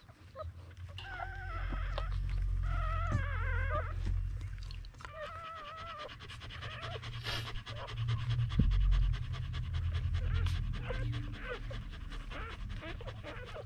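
Mother dog panting steadily while her newborn puppies nurse, with the puppies' wavering high-pitched squeaks and whines, most of them in the first half.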